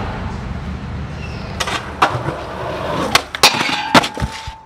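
Skateboard wheels rolling on concrete, then from about a second and a half in a string of sharp clacks and slaps of the board, the loudest near the end.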